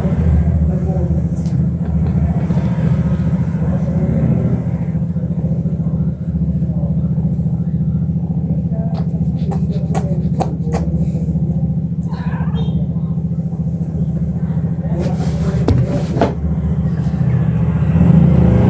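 A kitten purring steadily and loudly, close to the microphone, as a continuous low rumble. A few sharp clicks sound about halfway through and again near the end.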